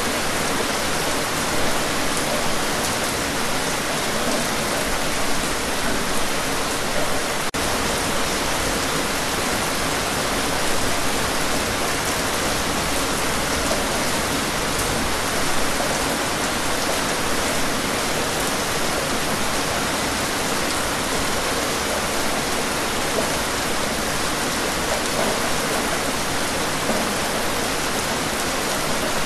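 Steady rain falling, an even hiss at a constant level without let-up.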